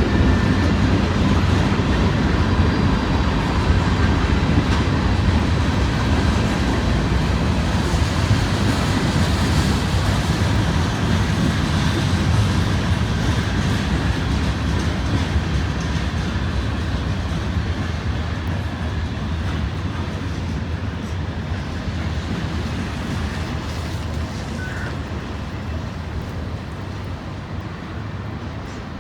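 Freight train's cars rolling past on the rails, a steady rumble that slowly fades as the train moves on.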